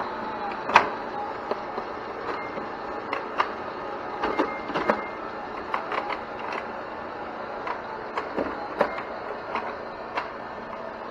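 Electronic tabletop pinball toy in play: the ball rattles and rolls around the plastic playfield under a steady rumble, with irregular sharp clicks and knocks of the flippers and bumper hits and a few short electronic beeps.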